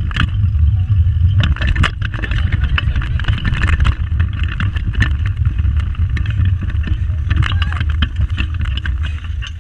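Pedal go-kart being ridden over tarmac: a steady low rumble from the wheels and frame, with frequent rattles and clicks.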